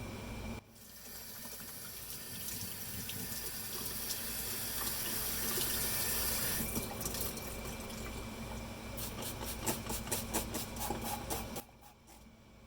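Liquid spraying in a steady hiss for most of the stretch, breaking into a quick run of spatters, about four a second, near the end, then cutting off suddenly.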